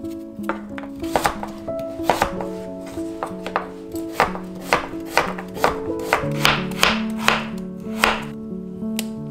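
Kitchen knife chopping onion and radish on a wooden cutting board: sharp, irregular knocks about one or two a second, over soft background music.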